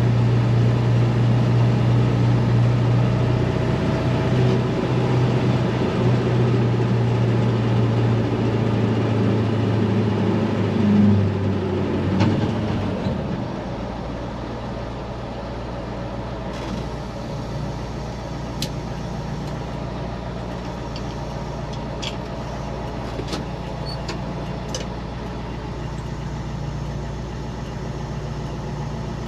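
Naturally aspirated 7.3 IDI V8 diesel of an International 4600 dump truck running steadily, then dropping to a quieter, lower idle about 13 seconds in. A few faint clicks come later.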